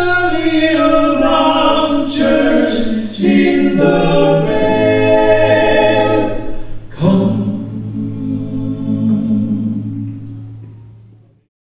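Unaccompanied vocal group singing a hymn's closing phrase in close harmony over a steady low bass note, ending on a held chord that fades out about a second before the end.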